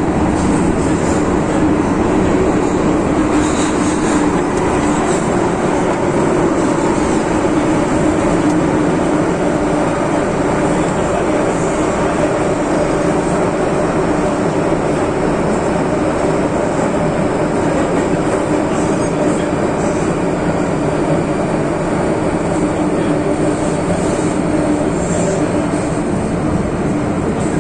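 MTR Tsuen Wan Line M-Train running at speed through a tunnel, heard from inside the carriage: a loud, steady rumble of wheels on rail and traction equipment with no breaks.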